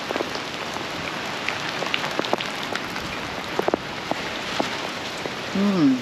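Steady rain falling, with scattered sharp taps of drops hitting nearby hard surfaces. Just before the end comes a short voice-like sound that drops in pitch.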